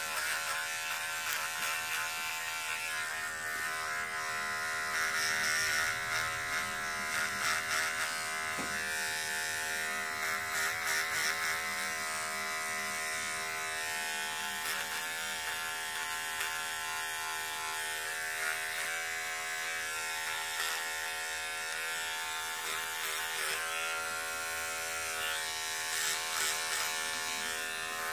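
Electric beard trimmer buzzing steadily as it is run over a sock to shave off loose fuzz, its pitch wavering slightly now and then as the cutter meets the fabric.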